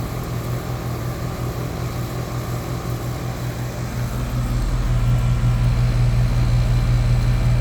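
Running air-conditioning condensing unit: a steady low compressor-and-fan hum that grows louder about four and a half seconds in.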